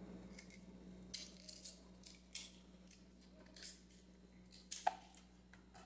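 Kitchen knife peeling cassava root by hand: faint, irregular scraping and slicing strokes of the blade through the thick bark, the sharpest one a little before the end.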